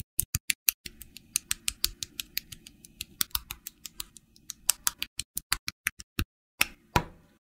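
Small plastic model-kit parts clicking and snapping together under the fingers: a rapid run of sharp clicks, several a second, with a faint low rumble under them for the first few seconds. The clicks stop shortly before the end.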